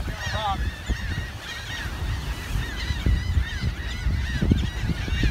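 Many birds calling over one another in quick, short chirping notes that rise and fall, over a low rush of wind and surf.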